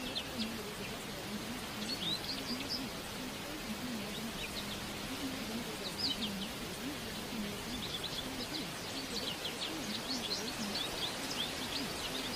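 Recorded birdsong ambience: small birds chirping in short scattered bursts over a steady hiss. Under it runs a faint low voice, the hidden affirmation track of a subliminal.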